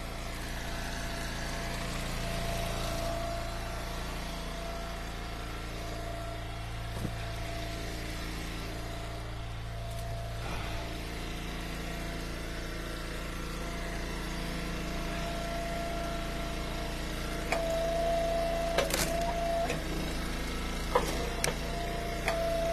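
Small gasoline engine of an Eastonmade Ultra wood splitter running steadily at an even speed. About three-quarters of the way through, a steadier, higher tone grows louder over it, with a few sharp clicks near the end.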